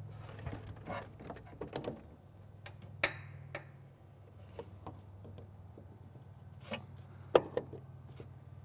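Bendix magneto being worked into its mounting hole on an aircraft engine so its drive gear meshes: scattered metal clicks, taps and scrapes over a steady low hum. A sharp knock about three seconds in rings briefly, and another knock comes near the end.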